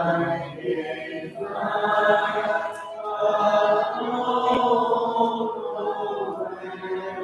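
A congregation singing a hymn together a cappella, mixed voices holding long notes in slow phrases with no instruments.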